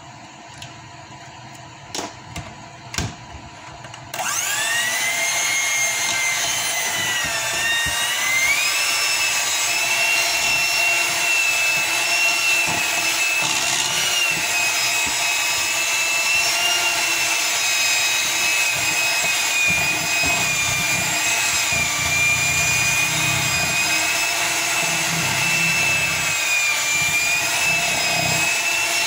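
Electric hand mixer switched on about four seconds in, its motor whine rising quickly and then running steadily with slight wavers as the beaters work through a thick cream cheese mixture. A few sharp clicks come just before it starts.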